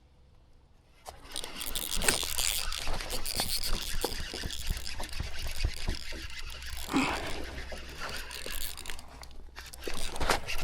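Irregular splashing and scraping with many small knocks, starting about a second in, as a large bass is landed at a kayak.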